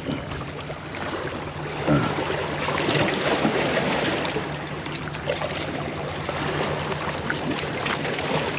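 Seawater surging and splashing through the gaps between breakwater boulders, swelling in the middle and easing off again. There is a single sharp knock about two seconds in.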